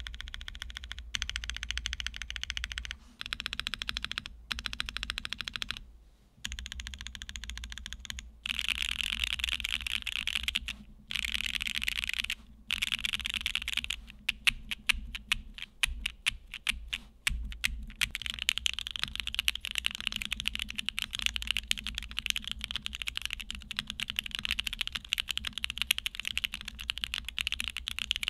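Typing on a Newone Twilight TKL gasket-mount custom mechanical keyboard with factory-lubed TTC Tiger switches, a PC plate and PBT keycaps. Fast runs of keystrokes come in bursts broken by short pauses, with slower, separate keystrokes in the middle.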